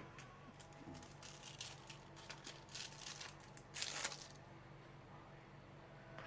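Faint rustling and crinkling with a few light clicks, as materials are handled, loudest about four seconds in, over a low steady hum.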